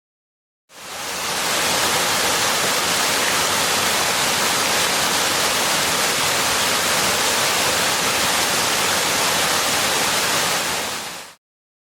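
Waterfall rushing: a steady roar of falling water that fades in about a second in and fades out near the end.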